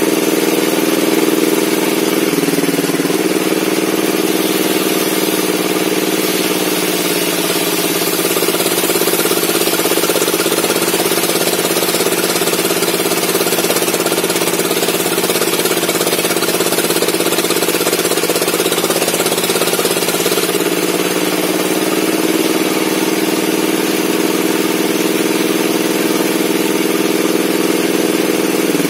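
Circular-saw bench (table saw) running, a steady motor hum with the blade's broad noise over it; the hum drops in pitch about two seconds in and rises back around twenty seconds.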